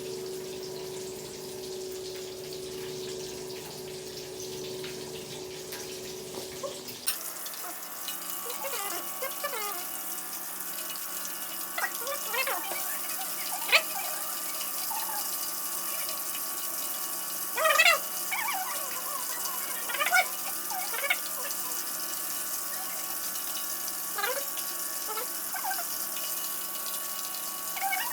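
Battered chicken deep-frying in hot oil: a steady sizzle with scattered crackles and pops. For the first seven seconds a steady hum sits under a fainter sizzle, then the sound changes abruptly to a louder, brighter sizzle.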